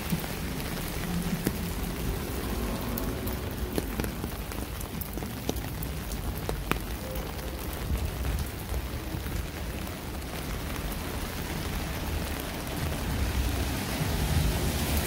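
Rain falling on wet city pavement: a steady hiss with scattered drops ticking close by, over a low rumble, growing louder near the end.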